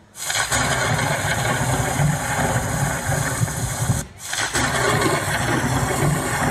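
Loud, steady engine or motor sound effect played through the stage loudspeakers, breaking off briefly about four seconds in and starting again.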